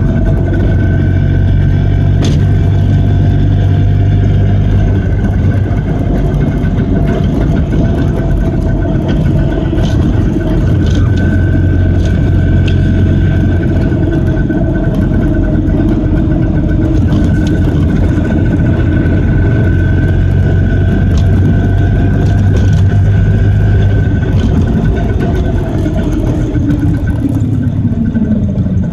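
Messerschmitt bubble car's single-cylinder two-stroke engine running under way, heard from close by with road and wind rumble; the engine note holds fairly steady, then drops over the last few seconds as the car slows.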